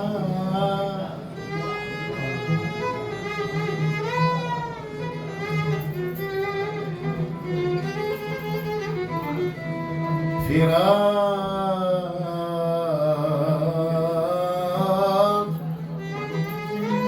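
Instrumental interlude of an Arabic song: a violin melody with sliding, ornamented notes over a steady low accompaniment.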